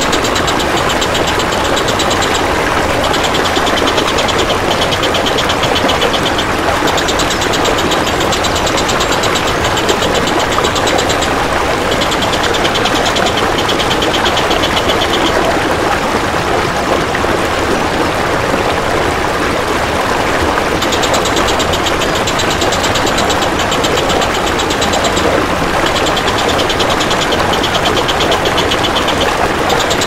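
Crested jay (cililin) giving bursts of rapid repeated high notes over a steady rush of flowing water. The calls stop for several seconds mid-way and then resume.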